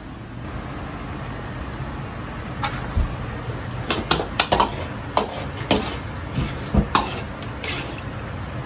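Kitchen utensils clinking and knocking against dishes or cookware, about a dozen sharp strikes spread over five seconds starting a few seconds in, over a steady low background hum.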